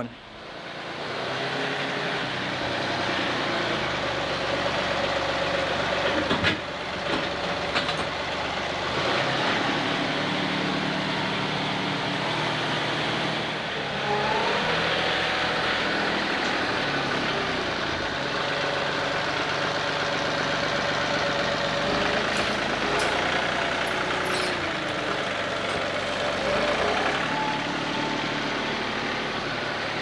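Tractor engine running steadily, its pitch rising briefly a couple of times, with a few sharp knocks.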